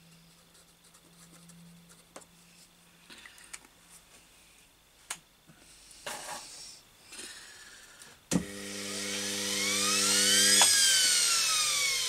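Washing machine universal motor switched on with a click about eight seconds in. Its whine rises as the armature spins up, over a steady mains buzz. About two seconds later the power is cut; the buzz stops and the whine falls as the motor coasts down. It is running wired with only one of its two field coils energised. Before that there are only faint handling clicks.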